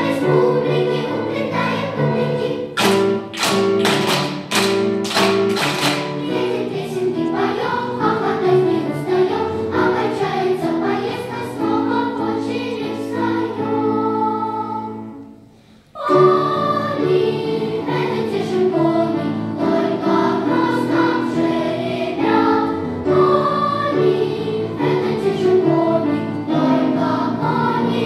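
Children's choir of first-graders singing in held, sustained notes. A few seconds in comes a run of sharp strikes, about two a second. Around the middle the singing fades almost to nothing, then starts again abruptly.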